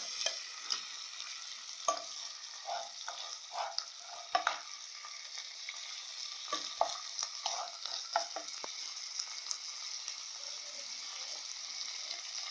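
Lamb pieces and chickpeas frying in oil in a pan over low heat, a steady sizzle, with occasional clicks and scrapes of stirring in the pan, mostly in the first two thirds.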